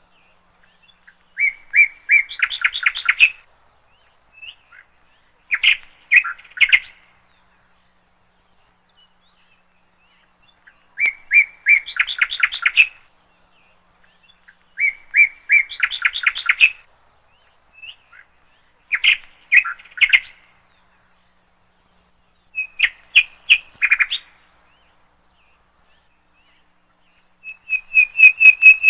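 A songbird singing in short phrases of rapid repeated chirping notes. There are about seven phrases, each one to two seconds long, with a few seconds of quiet between them.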